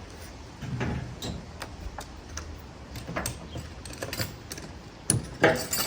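Scattered light clicks and knocks of hard parts being handled, irregular rather than rhythmic, with a louder cluster of knocks about five seconds in.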